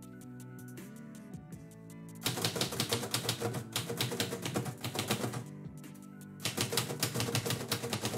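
Manual typewriter being typed on: fast runs of key strikes begin about two seconds in, break off briefly, then resume near the end, over background music.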